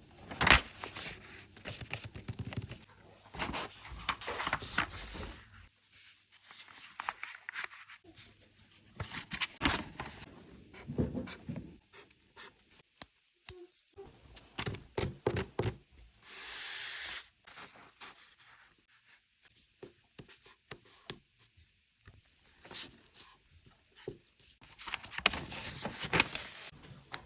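Close-up paper crafting sounds: paper crinkling and rustling, with sharp snips and scratchy rubbing, and a brief steady hiss about sixteen seconds in.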